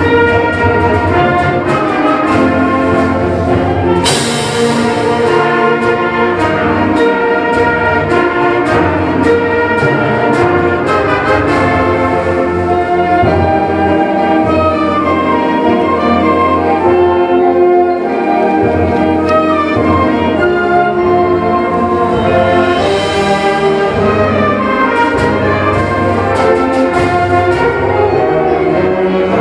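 School concert band playing a brass-led piece, winds and brass together, with a cymbal crash about four seconds in and another later on.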